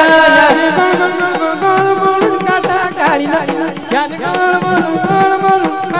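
Marathi gaulan devotional music: a melody line over steady hand-drum beats, in a passage between sung lines.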